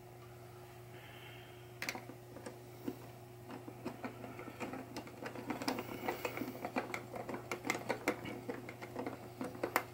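Small irregular metal clicks and scrapes of a nut being threaded and tightened by hand onto a pinball pop bumper's mounting bolt, sparse at first and busier from about three and a half seconds in, over a steady low electrical hum.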